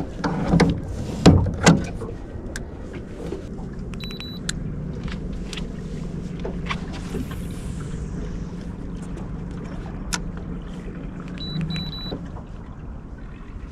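Gear knocking on an aluminium boat's hull, three loud knocks in the first two seconds, followed by a steady low motor hum with scattered light clicks and ticks.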